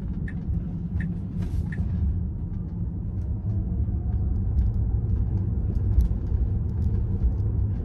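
Tyre and road rumble inside the cabin of a Tesla Model 3 Performance as it accelerates out of a right turn, growing louder as speed builds. Turn-signal ticks sound about every 0.7 s during the first two seconds, then stop.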